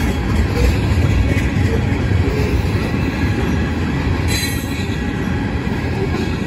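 Freight train tank cars rolling past close by: a steady, heavy rumble of steel wheels on the rails, with a brief higher hiss of wheel noise about four seconds in.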